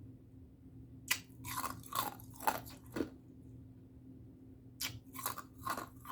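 Ice being bitten and chewed close to the microphone, crisp loud crunches. A run of about five crunches starts about a second in, then comes a pause, then about four more near the end.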